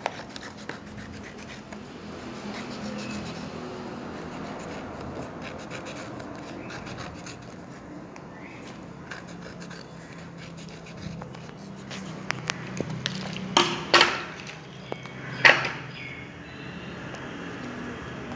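Scissors snipping through a sheet of paper and the paper rustling as it is cut into a circle, with small clicks throughout. A few louder short sounds come about two-thirds of the way in.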